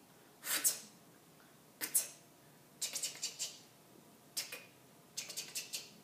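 Mouth sound effects made to go with the strokes of a letter drawn in the air: a hissing 'shh' lasting about a third of a second, a short hiss at about two seconds, then quick runs of short hissing clicks, one around three seconds in and another near the end.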